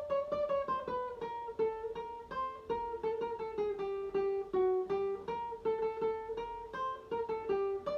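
Guitar played note by note, picking the second part of the circus clown tune high on the neck: a quick melody of short plucked notes, several a second, with repeated notes stepping up and down.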